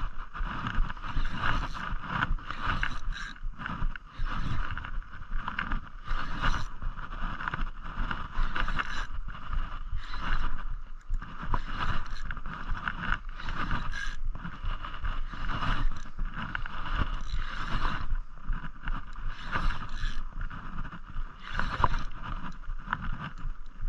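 Saltwater spinning reel being cranked steadily to bring in a hooked fish under load, a continuous fluttering whir with irregular pulses throughout.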